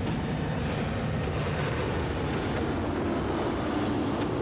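Steady drone of airliner engines running on the apron, a constant rumbling noise with no pauses.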